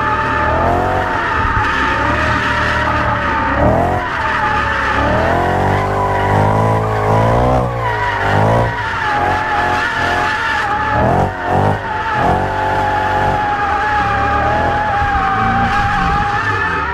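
BMW E92 M3's V8 engine revving up and down under throttle, heard from inside the cabin, with a steady tyre squeal as the car drifts. A quick run of short throttle blips comes a little past the middle.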